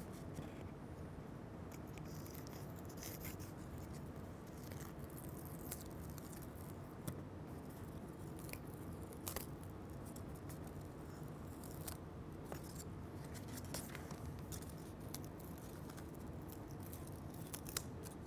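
Faint, irregular small ticks and scrapes of a pointed picking tool lifting cut paper letters off a sticky cutting mat, the paper peeling away from the tacky surface.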